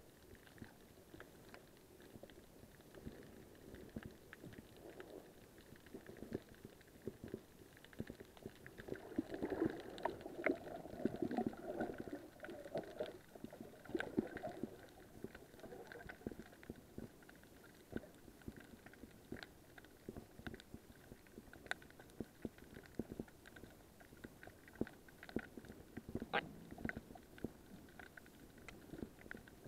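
Muffled underwater sound through an action camera's waterproof housing: a low rumbling and gurgling of moving water, louder for a few seconds near the middle, with many scattered sharp clicks.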